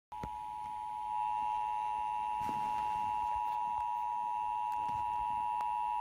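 Emergency Alert System two-tone attention signal from a Midland weather radio's speaker: a steady, shrill pair of tones held without a break, ahead of a National Weather Service flood warning.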